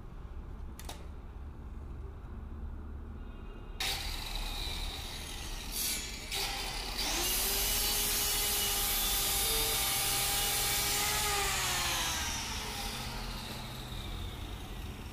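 Handheld electric circular saw starting about four seconds in and cutting across plywood, with a steady whine at its loudest for several seconds. Near the end its pitch falls as the motor winds down.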